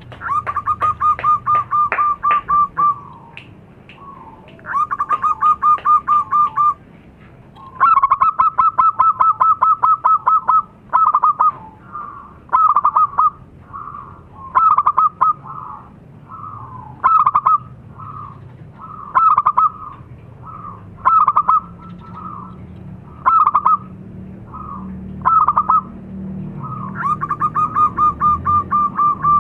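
Zebra dove (perkutut) singing: rapid staccato trills of two to three seconds each in the first ten seconds, then short phrases about once a second, then another long trill near the end.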